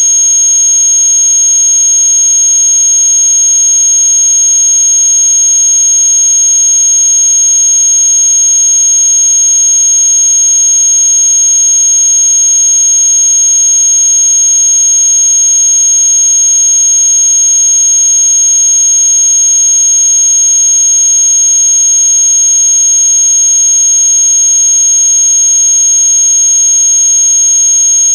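Loud, unchanging electronic tone: a shrill high-pitched whine with a fainter high overtone above it and a lower hum beneath, held without a break. It is a synthetic noise track meant to be played against noisy neighbours.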